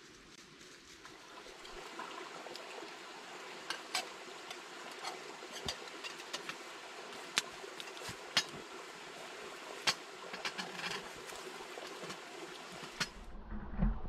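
Wood campfire crackling, with irregular sharp pops and snaps over a steady hiss. Near the end it gives way to a dull low rumble and a thump.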